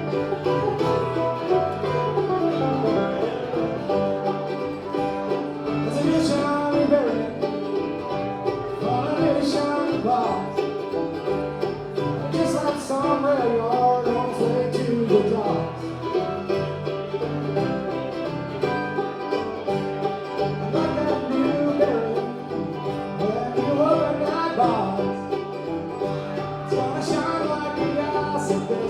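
Bluegrass band playing an instrumental break, banjo to the fore over guitar.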